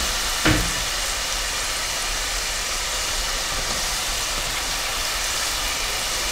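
Mandazi dough frying in a pot of hot oil, a steady sizzle, with a single sharp tap about half a second in.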